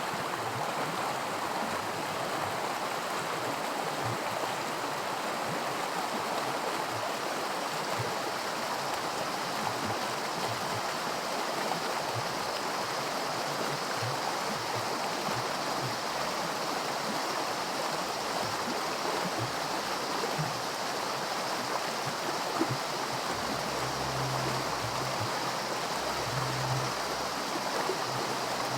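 Small creek rapids: shallow water rushing and splashing steadily over rocks, with little gurgles and pops.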